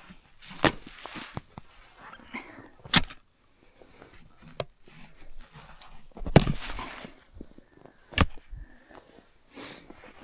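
Irregular crunches and sharp knocks in snow, with the loudest about three, six and eight seconds in; the one near six seconds drags on for about a second.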